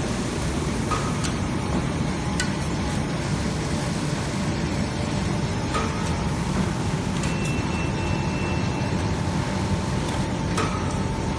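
Zhengrun RB420D semi-automatic rigid box maker running with a steady mechanical din, punctuated by four sharp clicks at irregular intervals.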